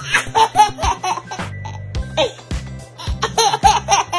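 A baby laughing in short, repeated bursts of giggles, over background music.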